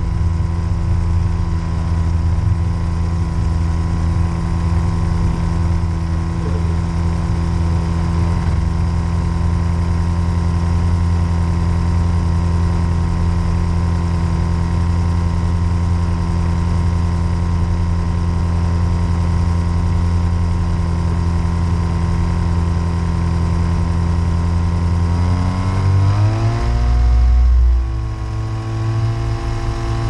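Rotax 503 two-stroke twin-cylinder engine of a Storch ultralight running steadily on the ground with the propeller turning. About 26 seconds in it revs up, the pitch rising, then throttles back sharply near 28 seconds. Wind buffeting the microphone adds a low rumble.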